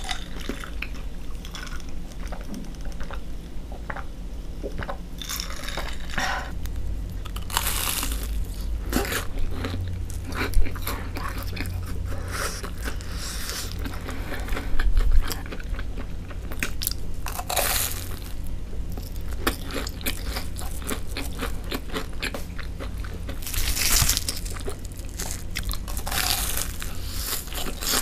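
Close-up crunching and chewing of deep-fried, breadcrumb-coated sticks: continual crisp crackles while chewing, with a few louder crunching bites spread through.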